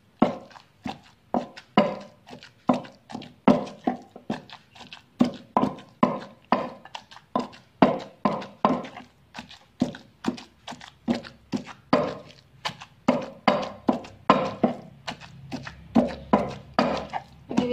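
Wooden pestle pounding a wet shrimp-paste mixture in a wooden mortar: a steady run of dull thuds, about two to three a second, as lime juice and water are worked into the paste.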